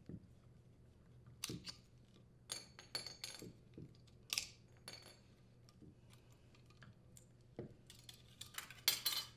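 Light metallic clinks and rattles from a furnace blower motor's steel support arms and band mounting bracket being handled and slid off the motor housing. There is a sharper clink about four seconds in and a quick cluster of clinks near the end.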